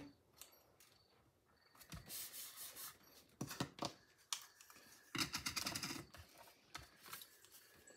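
Faint rustling and a few light ticks of card stock and ribbon being handled, coming in short bursts of about a second each.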